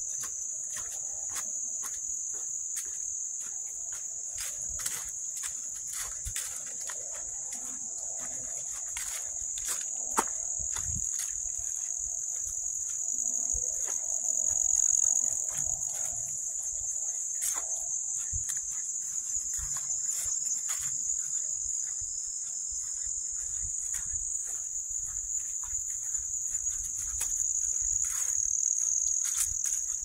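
Steady, high-pitched insect chorus, an even buzz that never lets up, with irregular footsteps and brushing along the trail.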